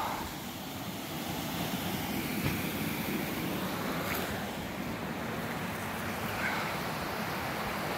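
Steady rushing noise, with a couple of faint knocks about two and a half and four seconds in.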